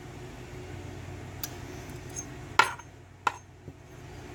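Small metal clicks and clinks from handling a lock cylinder and its picking tools: a couple of faint ticks, then two sharp clinks about a second apart, over a low steady hum.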